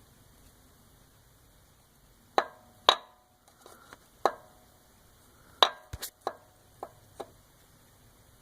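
A loose connecting rod on a 1996 Eagle Vision 3.5 L V6 clacking against its crankshaft journal as it is moved: a series of about eight sharp, irregular metal clacks with a short ring, starting about two seconds in. The clacks are the sign of excessive rod play from a rod bearing worn through.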